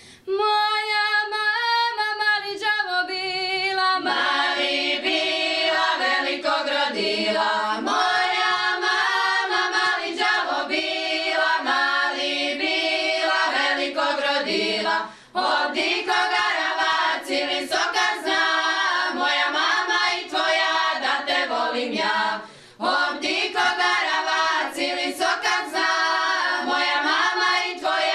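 A women's folk singing group singing a traditional Šokac song unaccompanied, in several voices. A lead voice opens the line and the others join about four seconds in, with two brief breath pauses between phrases.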